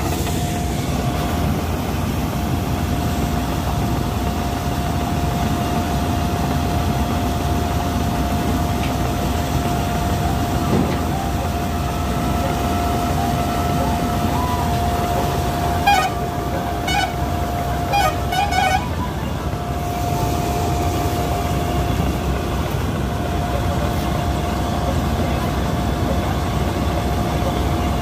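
Combine harvester running: a steady low engine noise with a steady high whine held over it. A few sharp clattering knocks come about 16 to 19 seconds in, and the whine drops out briefly just after them.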